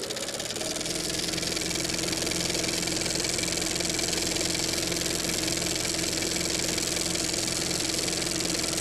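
Motorcycle engine running at a steady speed. Its pitch rises briefly at the start, then holds, under a steady hiss.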